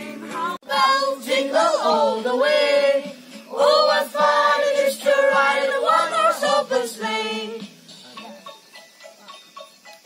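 Children singing a song together, stopping after about seven and a half seconds, followed by fainter music with held steady notes.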